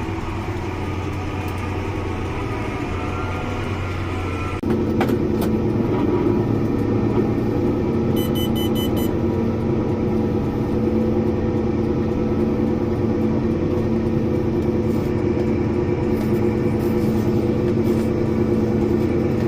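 Engine of a haylage-hauling farm vehicle running steadily while it drives over a rough field. About four and a half seconds in it gets louder and higher in pitch as more throttle is given, then holds steady.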